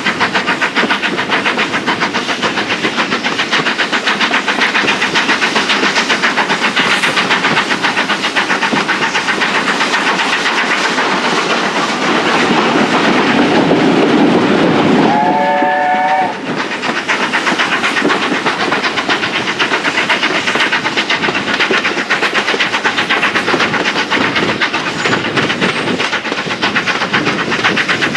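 BR Standard Class 4 2-6-0 steam locomotive working hard, heard from a coach behind it: fast, even exhaust beats over the rumble of the carriage wheels on the rails. The noise swells for a few seconds as its steam engulfs the carriage, and a short steam-whistle blast sounds about halfway through.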